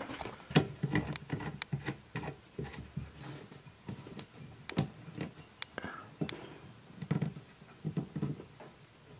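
Irregular small clicks, taps and scrapes of a union fitting being threaded and tightened by hand onto a copper pipe, with a few dull knocks from handling the pipework.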